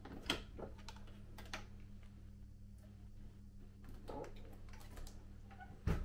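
Light plastic clicks and taps from the hinged trouser-press panel and door of an LG Styler clothes-care cabinet being handled, over a low steady hum. A loud thud right at the end as the cabinet door shuts.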